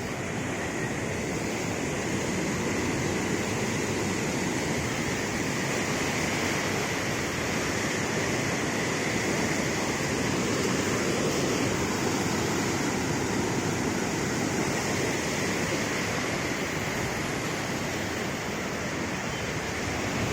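Steady rush of a river running high in flood, a constant noise of moving water.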